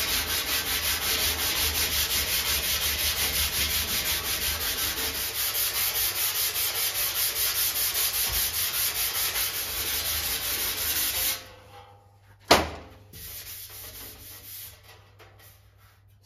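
Steel Classic Mini wing being hand-sanded with 120-grit paper on a block: a rasping scratch in quick back-and-forth strokes, about four a second. This is a rub-over to show up any low spots left after dent repair. The sanding stops about eleven seconds in, followed by one sharp knock and a few seconds of fainter rubbing.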